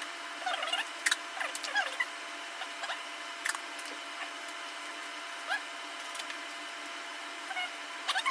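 Packing tape being pulled off the roll and pressed along the seams, played fast-forward: many short rising squeaks and sharp clicks over a faint steady hum.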